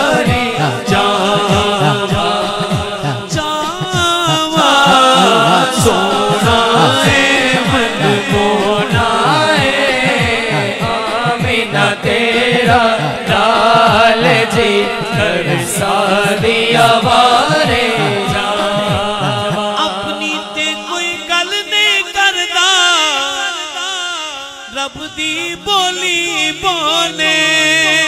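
A male voice singing a Punjabi naat in long, wavering melismatic lines through a microphone. A quick, even pulse of short beats runs underneath and drops out about two-thirds of the way through, leaving the voice alone.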